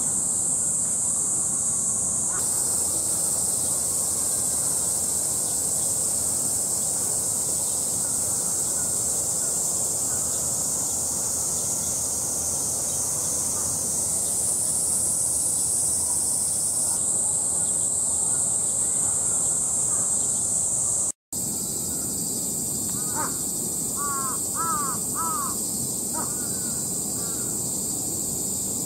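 Steady, high-pitched drone of a summer cicada chorus. The sound drops out abruptly for a split second about two-thirds of the way through. After that, crows caw several times in short bursts.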